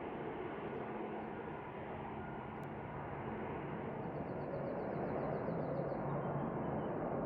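Jet airliner engine noise: a steady rushing rumble that swells a little after the middle. A faint run of quick high bird chirps sits over it partway through.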